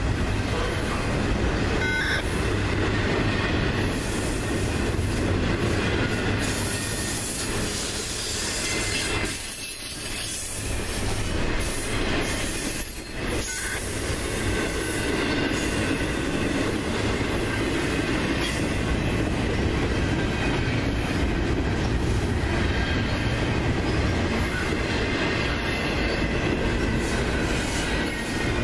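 Double-stack intermodal freight cars rolling past: a steady rumble of steel wheels on jointed rail with a thin, high wheel squeal riding over it. The sound dips briefly twice, about ten and thirteen seconds in.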